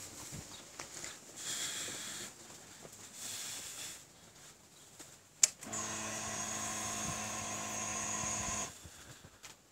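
Ignition switched on on a fuel-injected Benelli BN302: a sharp click, then the electric fuel pump priming with a steady whine for about three seconds before it cuts off. The engine has not yet started.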